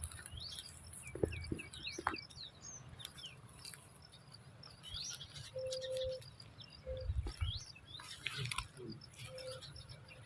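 Small birds chirping, many short quick calls scattered throughout, with a few low thumps mixed in.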